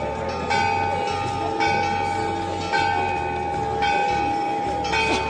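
Large temple bell struck about once a second, five strikes, each ringing on with a clear tone until the next, over a low steady hum.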